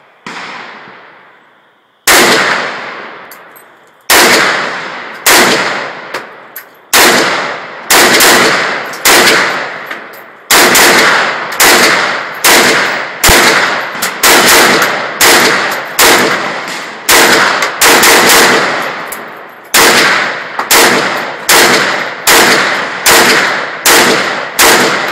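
AK-47 rifle firing a long string of single shots at a steady pace, about one to two a second, beginning about two seconds in. Each loud crack is followed by a trailing echo.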